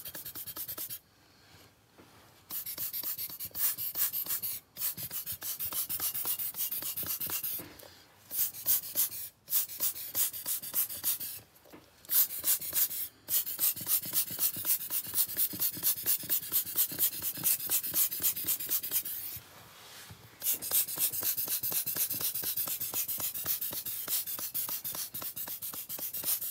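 Long breaths of air blown across wet alcohol ink on paper to push the ink around, a hissing rush broken every few seconds by short pauses to draw breath.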